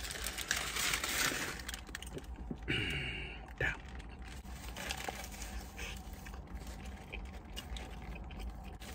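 Chewing a mouthful of burger, with the paper wrapper crinkling and rustling in the hand: soft irregular clicks and scrapes, busiest in the first couple of seconds.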